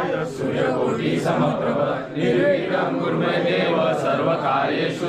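A group of govinda troupe members chanting together in unison, many men's voices with no pause.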